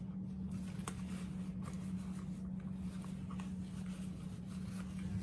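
Soft rustles and a few small clicks as hands handle a burrito and its white wrapping while eating, over a steady low hum.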